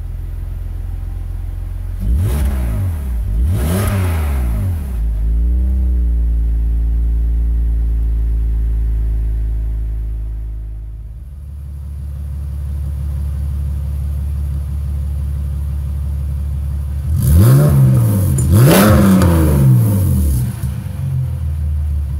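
BMW E46 straight-six engine idling and revved twice through the stock exhaust and muffler, the revs falling slowly back to idle. About halfway through, the same engine idles and is revved twice more through stainless steel headers with the muffler deleted, the revs louder than before.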